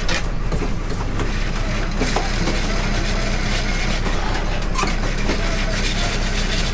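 Crab boat's engine running steadily, with a few sharp clanks from wire crab pots being handled at the rail.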